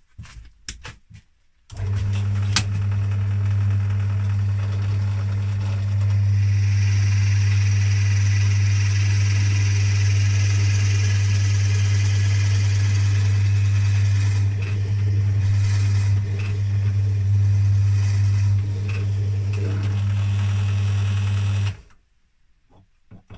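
Small bench drill switched on, its motor running with a steady hum while the bit bores into a wooden pen blank, a brighter cutting hiss rising over the hum through the middle stretch. The motor is switched off and stops suddenly near the end.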